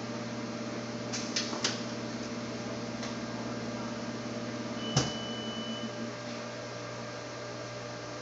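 Thermatron radio-frequency welding press running with a steady electrical hum. A few clicks come about a second and a half in. About five seconds in there is a sharp clack, followed by a high steady tone lasting about a second, after which the hum eases.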